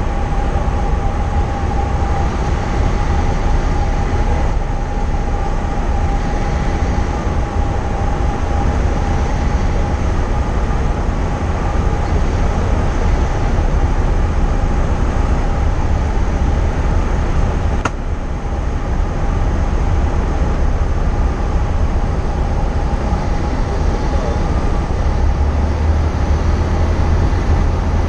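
Cessna 172 cabin noise in flight: the single piston engine and propeller drone steadily with a constant hum, mixed with airflow rush. One sharp click cuts in about two-thirds of the way through.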